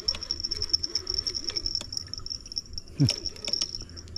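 Spinning reel being wound in on a hooked river fish, with scattered light clicks and rattles. Behind it a steady, high-pitched pulsing drone, and a brief low falling sound about three seconds in.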